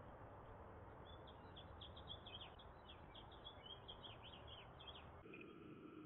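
House wren singing: a fast run of many short falling notes lasting about three seconds, starting about a second in, faint over a steady hiss.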